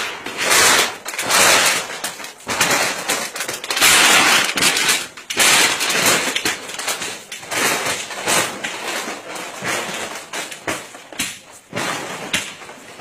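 Corrugated metal fence sheets being torn down and dragged: a string of loud, irregular rasping and crashing noises, each lasting up to about a second.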